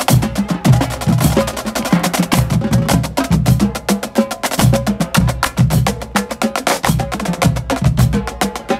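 Marching band drumline playing a cadence: rapid, crisp snare-drum strokes over a pulse of bass-drum hits, with cymbals.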